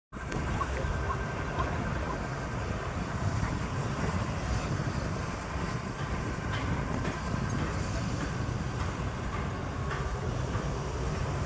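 Heavy machinery running steadily: a continuous low rumble with faint whining tones and a few light clicks and knocks.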